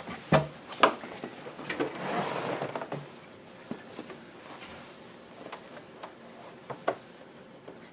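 Fabric being handled and slid across a sewing machine bed: cloth rustling, mostly a couple of seconds in, with a few sharp clicks and knocks, the loudest near the start. The machine itself is not clearly running.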